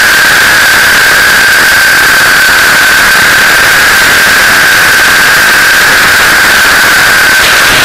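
T-Rex 600 RC helicopter in flight, heard from its own landing skid: very loud, distorted rotor and drivetrain noise with a steady high whine. The whine shifts slightly just before the end.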